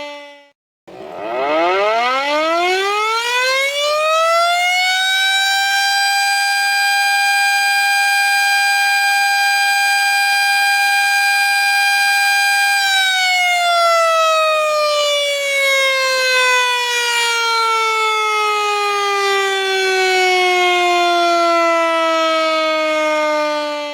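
Civil defense warning siren. A previous cycle fades out in the first half-second; after a short gap the siren winds up from a low pitch to a steady high tone, holds it for about seven seconds, then slowly winds back down, stopping at the end.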